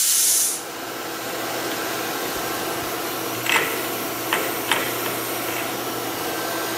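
Compressed air hissing out of a CNC spindle's pneumatic tool release, cutting off about half a second in. Then the steady hum and noise of a running air compressor, with three light knocks a little past the middle.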